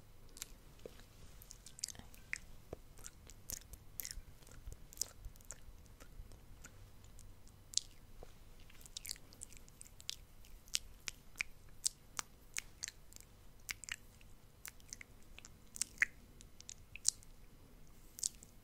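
Close-miked ASMR mouth sounds: wet tongue and lip clicks and pops, sharp and irregular, several a second.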